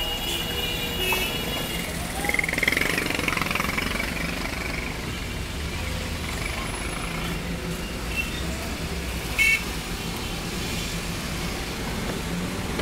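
Busy city street traffic heard from inside a moving car: a steady rumble of car and motorcycle engines, with a short horn toot about nine and a half seconds in.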